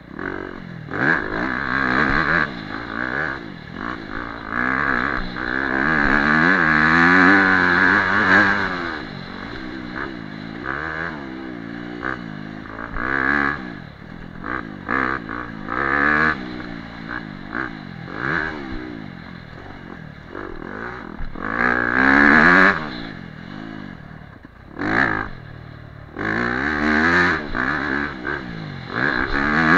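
Dirt bike engine revving up and down as it is ridden over rough ground, the throttle opening and closing again and again. The longest hard pull comes about six to nine seconds in, and another about twenty-two seconds in.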